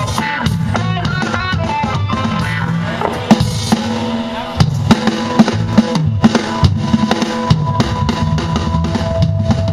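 Live funk fusion band playing: a drum kit drives the music with kick, snare and rimshot hits under electric guitar and bass. The drum hits grow sharper and busier from about three seconds in.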